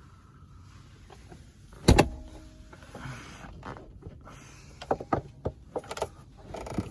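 Mazda Miata soft-top latch being released: one loud sharp clack about two seconds in with a brief metallic ring, then a quicker run of lighter clicks and knocks as the latches are worked.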